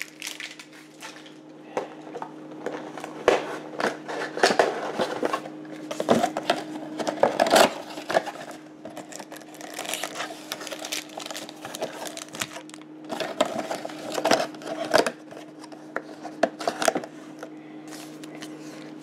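Cardboard 2020 Donruss Optic Football mega box being torn open and handled, with irregular crackles, clicks and rustles of cardboard and foil card packs. A steady low hum runs underneath.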